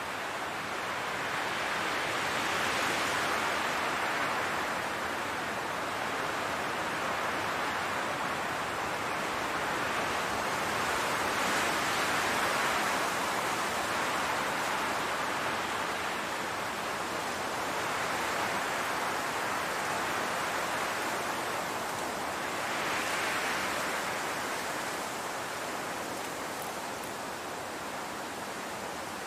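Wind blowing through a field of tall grass: a steady rushing hiss that swells and eases in slow gusts several times.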